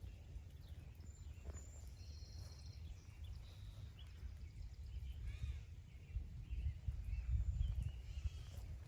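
Several birds chirping and calling, including a short, fast trill about two seconds in, over a steady low rumble of wind on the microphone. Soft footstep thuds come in the second half.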